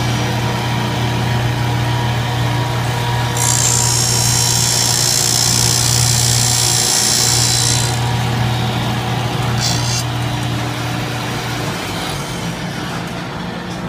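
Automatic circular-saw-blade sharpening machine running with a steady motor hum. About three seconds in, a high grinding hiss from the grinding wheel working the blade's teeth sets in for roughly four seconds, with a shorter one near ten seconds. The hum drops away near the end.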